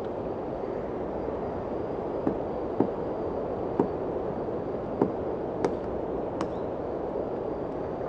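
Female pileated woodpecker pecking into a dead black walnut trunk: six separate, irregularly spaced knocks of bill on wood, starting about two seconds in, over a steady background hiss.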